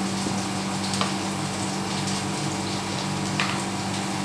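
Onions browning in hot oil in a frying pan, a steady sizzle, over a steady low hum. A couple of light clicks, about a second in and near the end.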